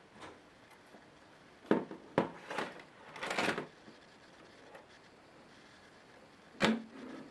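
Asus K75VJ laptop's opened plastic case being handled and shifted on a table: two sharp clicks about two seconds in, a short scraping rustle around three seconds, and one knock near the end.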